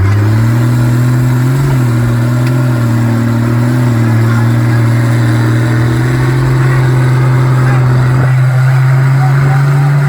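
Off-road vehicle engine running hard at high revs, its note held fairly steady with a short rev blip about two seconds in.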